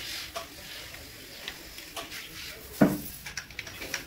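Scattered metal clinks and knocks of tools and engine parts being handled, with one louder knock about three seconds in.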